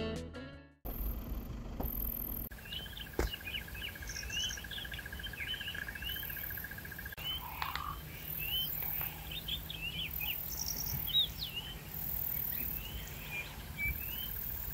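Several wild birds chirping and calling in short, quick notes over a faint steady outdoor background, after background music fades out at the start.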